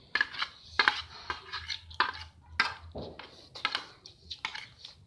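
Cutlery clinking and scraping against plates in quick, irregular strokes as fried noodles are eaten.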